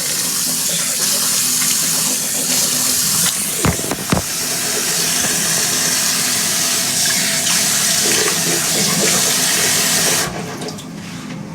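Water running from a sink tap, a steady hiss that stops suddenly about ten seconds in. Two sharp knocks come close together about four seconds in.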